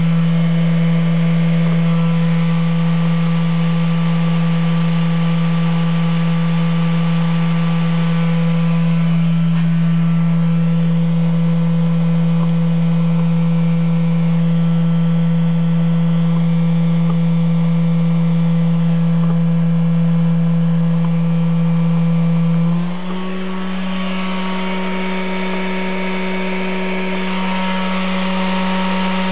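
Brushed permanent-magnet DC spindle motor (1 hp) running under a PWM speed controller, giving a steady hum. About 23 seconds in the hum steps up in pitch, a change in the commanded spindle speed.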